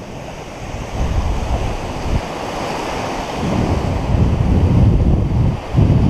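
Surf washing in and out in the shallows, mixed with wind rumbling on the microphone, which swells loudest through the second half.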